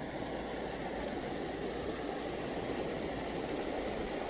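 Steady rush of water pouring out through a spillway into a tidal channel, an even, constant roar.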